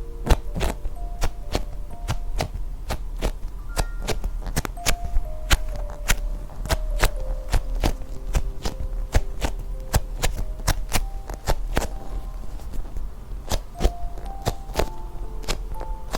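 Music-box style background tune of short plucked notes, overlaid by frequent irregular sharp taps and clicks.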